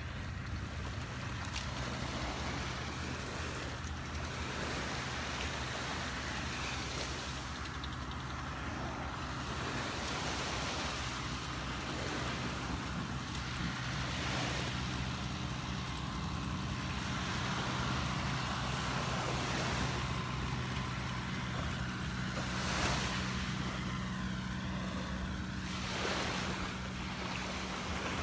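Small surf breaking and washing up a sandy beach, rising and falling every few seconds, over a steady low engine hum.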